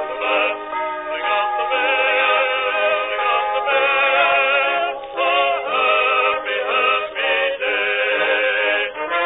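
Background music: a melody with strong vibrato over sustained chords, broken by short pauses between phrases.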